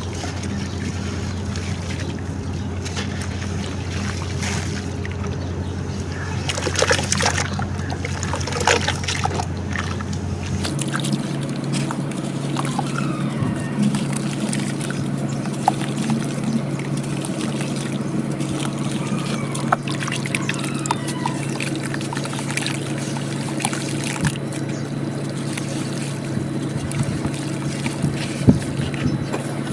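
Wet cement and sand chunks crumbled and squished by hand, with sloshing, dribbling water and scattered crackles. Under it runs a steady hum that changes pitch about ten seconds in.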